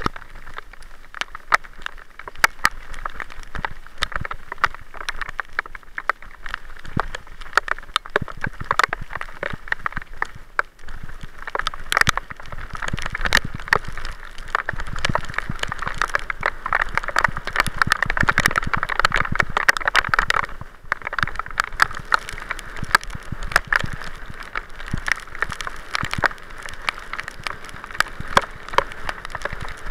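Bicycle riding down a wet, rutted dirt track: tyres hissing and splashing through mud and running water, with constant irregular clicks and knocks as the bike rattles over the bumps.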